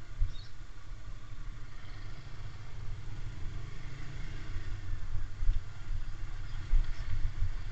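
Motorcycle engine running as it rides along a rough, potholed village lane, with a low rumble and uneven bumps that grow louder toward the end.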